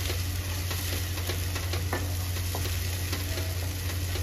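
Tomato and onion paste sizzling in oil in a non-stick kadai while a spatula stirs and scrapes through it, with a few light clicks of the spatula against the pan, over a steady low hum.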